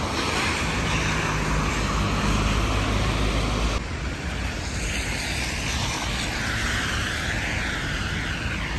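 Traffic on a rain-soaked city street: vehicles running on the wet road with a steady rumble and hiss, along with the rain. The sound changes abruptly about four seconds in, the low rumble dropping away and a brighter wavering hiss taking over.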